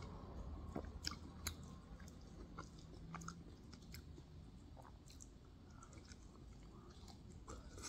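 A person chewing pork momo dumplings: faint mouth clicks and smacks at uneven intervals.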